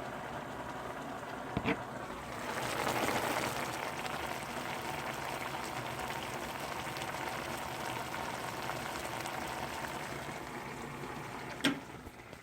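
Food bubbling and boiling in a pot on a gas stove, swelling louder a couple of seconds in. Near the end a sharp click as the gas knob is turned off, after which the bubbling dies down.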